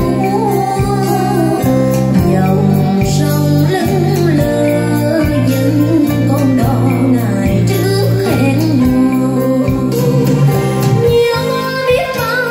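A song with a singing voice over held bass notes and a regular beat, played through a pair of JBL TLX-16 three-way loudspeakers with 20 cm woofers and titanium tweeters.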